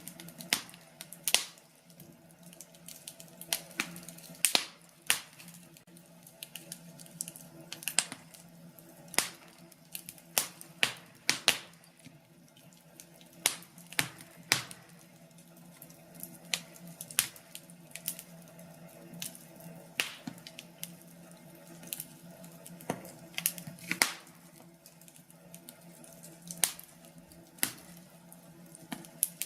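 Wood fire in a fireplace crackling, with irregular sharp pops and snaps every second or so over a faint steady hum.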